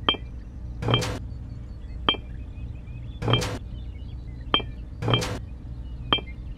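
Miniature clay bricks clinking as they are picked one at a time from a pile and set into a plastic toy trailer: a sharp click or short rattle roughly every second, seven in all.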